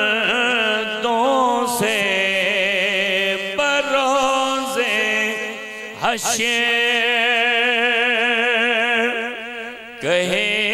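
A single voice chanting an Urdu naat in long, drawn-out melismatic phrases with heavy vibrato, breaking briefly between phrases about every two to four seconds.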